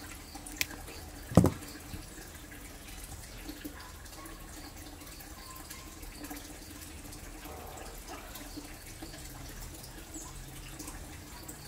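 Hand pruning shears snapping shut on a tiny plant sprout: a sharp click about a second and a half in, with a lighter click just before it. Then faint small ticks from fingers handling the cut pieces, over a low steady hum.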